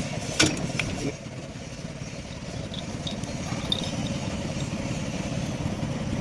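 An engine idling steadily with a low, even rumble, and a sharp metallic click about half a second in, followed by a fainter one.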